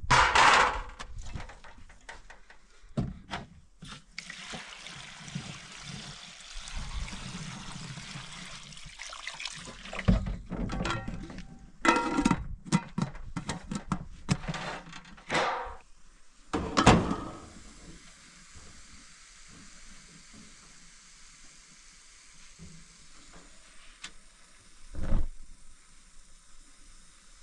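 Water pouring into a steel pot for several seconds, followed by a run of sharp metal clanks and knocks as the steel pot, its lid and the tray are handled.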